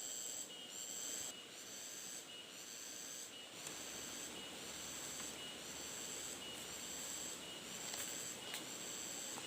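Forest insects calling: high, buzzing pulses that repeat evenly about once a second over a soft steady hiss, with two sharp clicks near the end.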